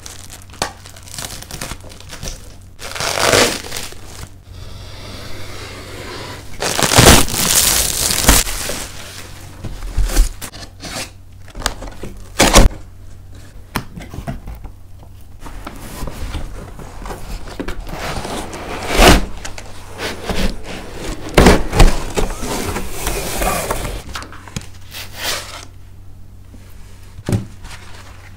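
Unboxing handling noises: plastic shrink wrap being cut and crinkled, cardboard box flaps and foam packaging rustling, with several sharp knocks from the box being handled. A faint steady low hum runs underneath.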